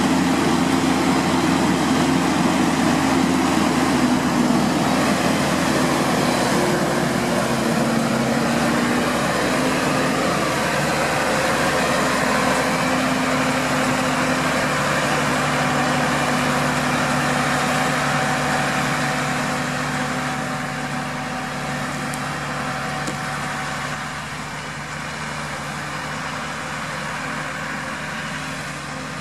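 New Holland TM140 tractor's six-cylinder diesel engine running steadily with a low hum, growing quieter over the last third.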